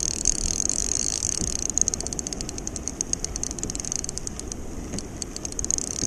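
Spinning reel's drag clicking in rapid bursts as a hooked fish pulls line off against the bent rod. The clicks are very dense at first, thin out after about two seconds, then come fast again near the end.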